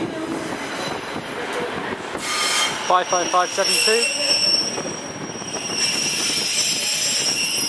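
Northern diesel multiple unit running past along the platform, its wheels squealing in a steady high pitch from about two seconds in, over the rumble of the passing train.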